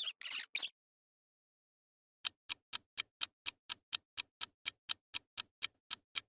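Ticking countdown-clock sound effect, even sharp ticks at about four a second, starting about two seconds in. Before it, in the first moment, come the last few high, short squeaks of a rat.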